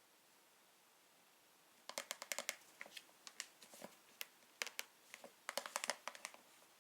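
Hands handling something crinkly: after about two seconds of quiet, a quick, irregular run of small clicks and crinkles.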